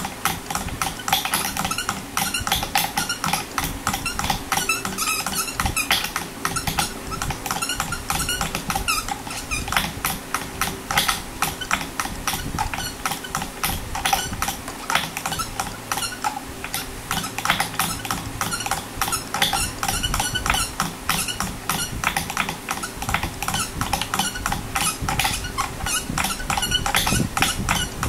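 Dense, irregular clicking, ticking and squeaking of electric guitar strings being handled and wound at the headstock while an Ibanez S520 is re-strung, over a steady low hum.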